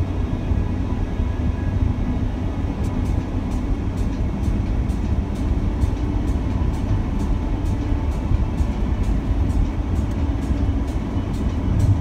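Steady low road and engine rumble of a car driving at speed, heard from inside the cabin, with music playing underneath and a light regular beat.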